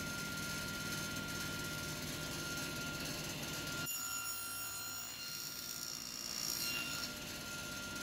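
Table saw running while a tenon cheek is cut in a workpiece held in a tenon jig. The sound changes abruptly about four seconds in, with higher tones coming in and swelling near the end.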